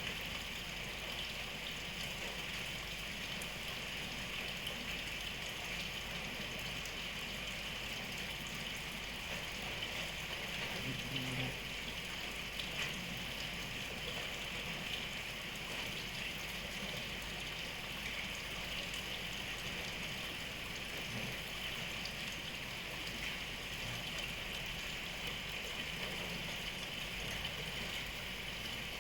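Steady rain falling, an even hiss with no let-up. A brief low sound comes about eleven seconds in.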